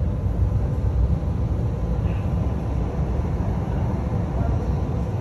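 Steady low machine noise that holds even, with no distinct knocks or changes.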